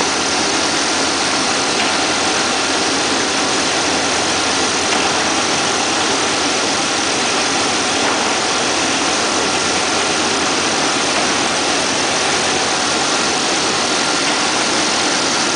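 Single-facer corrugated cardboard machine line running: a steady, even mechanical drone with a faint constant whine.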